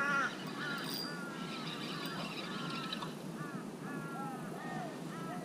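Birds calling over and over: a steady run of short, arching cries, several overlapping.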